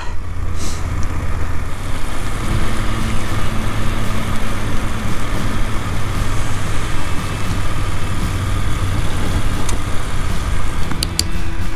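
BMW F750GS's parallel-twin engine running steadily while riding on a gravel road, with wind and road noise over it. A few short, sharp clicks near the end.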